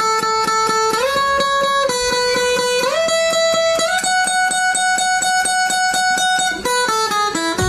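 Kalimba (thumb piano) with a hollow wooden body being played with both thumbs. Quick, even plucks of its metal tines sound over notes that ring on, and the harmony steps to a new chord about once a second, with a quicker run of changes near the end.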